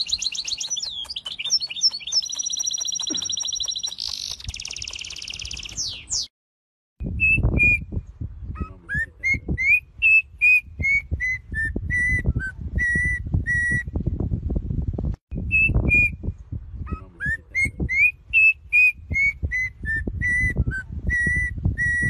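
Two birds singing in turn. First a small brown finch-like bird trills fast, high notes for about six seconds. Then, after a brief silence, a black-and-yellow oriole-type bird whistles a clear melodic phrase of rising and falling notes twice, over wind rumbling on the microphone.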